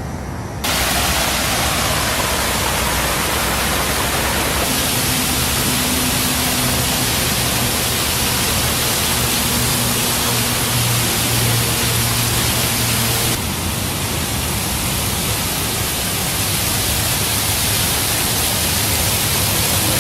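Small artificial waterfall in a stream, water splashing with a steady rush. It starts suddenly about a second in and drops a little in level about two-thirds of the way through.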